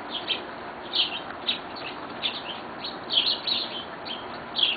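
Small birds chirping: a quick run of short, high chirps, about four a second, over a faint steady hiss.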